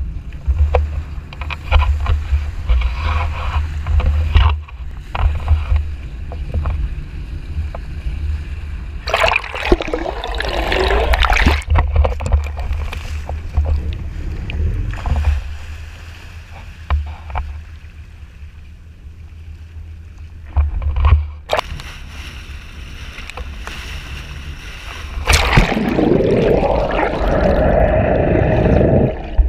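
Wind rumbling on an action camera's microphone over water sloshing and splashing around a sport-fishing boat, with louder bursts of splashing as the hooked fish is fought at the surface.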